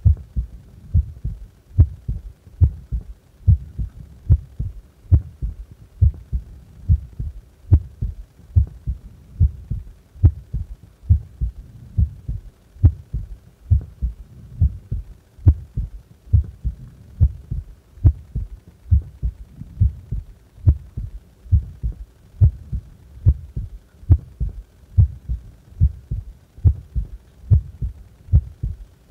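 A human heart beating at rest, heard close up: low thumps in a steady, even rhythm.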